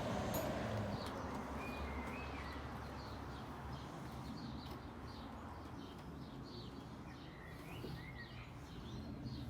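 Small birds chirping, with a short warbling call about two seconds in and another near the end, over a faint steady background noise.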